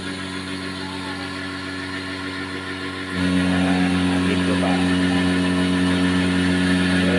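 Cotton candy machine running, its spinning head's electric motor giving a steady, even hum. About three seconds in the hum becomes clearly louder.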